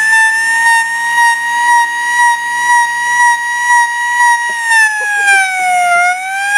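Small red electric siren sounding a loud, high steady tone after winding up. The pitch sags about five seconds in and climbs back, and the loudness throbs about one and a half times a second.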